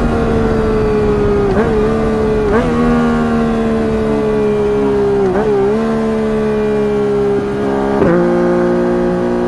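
Three-cylinder motorcycle engine running hard at high revs. Its pitch sags slowly, with quick dips and jumps about four times.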